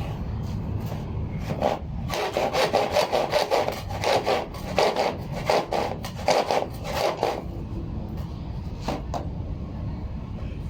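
Hand saw sawing with quick back-and-forth strokes, about three a second, over roughly five seconds, then two more strokes a little later. A steady low rumble runs underneath.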